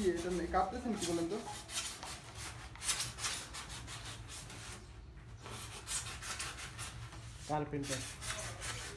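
Quick repeated scratchy rubbing strokes on a white polystyrene foam ('cork') sheet as it is cut and worked by hand along the pencil lines.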